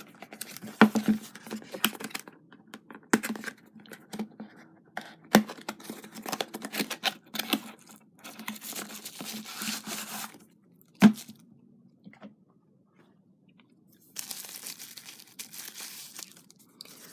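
A small cardboard radio box being opened by hand: packaging tearing and crinkling, with sharp clicks and knocks as it is handled, and a brief pause about two-thirds of the way through.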